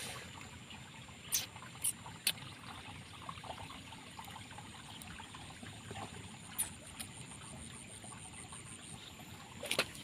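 Faint trickle of water flowing along a shallow irrigation ditch, with a few short, sharp clicks over it.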